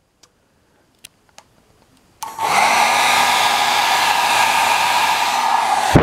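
2006 Revlon travel hairdryer switched on at its low setting: a couple of faint clicks, then about two seconds in the motor starts suddenly, spins up and runs as a steady blowing whine with several held tones.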